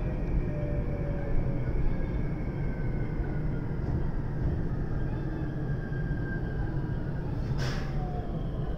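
JR West 521 series electric multiple unit heard from inside its cab end: steady rumble of wheels on rail, with a faint motor whine that slowly falls in pitch as the train slows. One brief sharp burst of noise stands out near the end.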